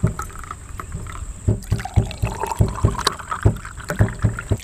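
Thick cherry milkshake being poured from a blender jug into a glass, with a string of irregular low pulses, about two or three a second, as the liquid gurgles out.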